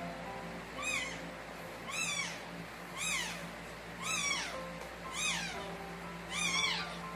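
High-pitched Shih Tzu cries during whelping: a rising-then-falling squeal that repeats about once a second, about seven times, over a faint steady hum.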